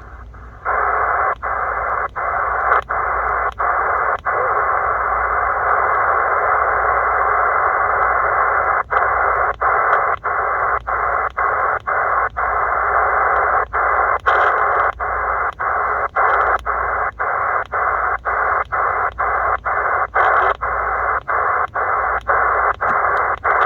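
C. Crane CC Skywave SSB portable receiver's speaker giving out a steady, narrow hiss of band noise in lower sideband on an empty 80-meter amateur band, with no signals heard. The hiss starts a moment in and then breaks off for an instant again and again, about twice a second, as the receiver is tuned step by step.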